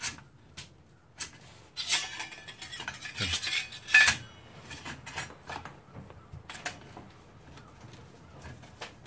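Stainless-steel mini wood stove parts clinking and scraping against each other as they are fitted together, in scattered knocks with a busy stretch in the middle and the loudest ringing clink about four seconds in.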